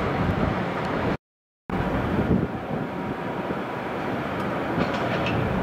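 Steady rumble of hydraulic excavators working a concrete demolition site, with a few light cracks and clatters of breaking concrete near the end. The sound drops out completely for half a second about a second in.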